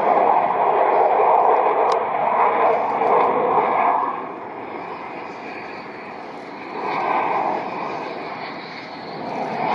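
Jet noise from a twin-engine canard-delta fighter flying a display, changing in loudness as it turns. It is loudest for the first four seconds, then fades, swells again about seven seconds in, and rises once more near the end.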